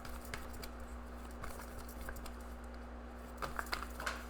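Faint scattered taps and clicks of tarot cards being handled, with a few clustered about three and a half seconds in, over a steady low hum.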